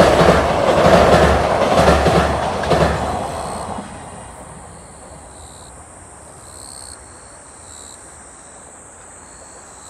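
Freight container wagons' wheels clattering in a steady rhythm over the rail joints of a steel girder bridge as the end of the train passes. The clatter fades away about three to four seconds in.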